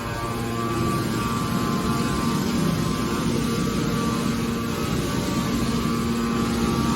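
Aluminium can baler machine running with a steady mechanical hum. Its hum turns rougher and lower for a few seconds in the middle, then steadies again near the end.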